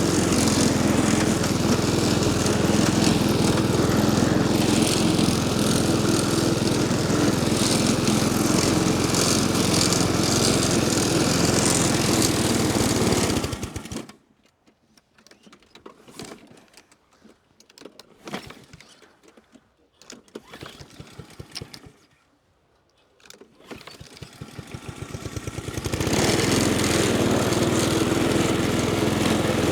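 MowRator S1 Pro 4WD remote-controlled lawn mower cutting with a steady hum. About halfway through it winds down and stops, leaving near quiet with a few faint knocks. Some twelve seconds later it spins back up and runs on steadily.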